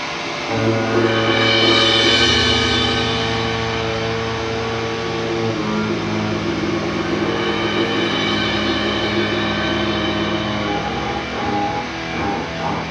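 Improvised instrumental music from a bass guitar and a guitar playing long held notes. A low bass note comes in about half a second in and moves to a higher note about five seconds later, while the guitar's bright high tones swell and fade.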